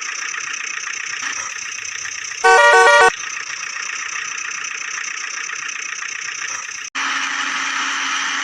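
A vehicle horn honks once for well under a second, over a steady noisy engine-like drone. Near the end the drone cuts off abruptly and a different steady drone with a low hum takes over.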